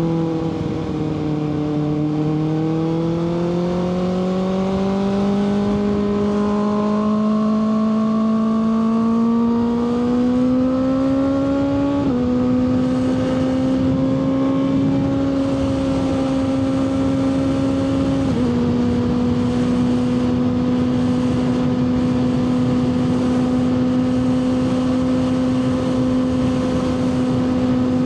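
Kawasaki ZX-6R 636's inline-four engine running under way, its pitch dipping briefly, then climbing slowly for about twelve seconds before stepping down twice and holding steady, with wind hiss under it.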